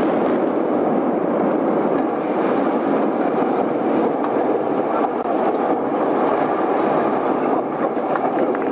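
Steady, loud rumbling roar of a steel truss bridge collapsing into a gorge right after demolition charges fire, with the blast noise carrying on through it.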